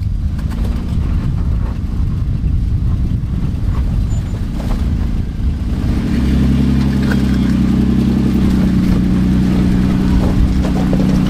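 Off-road vehicle engine running under load: a rough rumble at first, then from about six seconds in a steady, held engine note.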